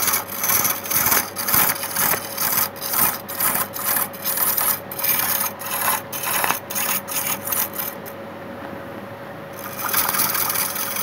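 Hand-held turning tool cutting into a large wooden disc spinning on a wood lathe: rasping scrapes in quick repeated strokes, about two to three a second, over a steady hum. The cutting stops for a moment near the end, then starts again.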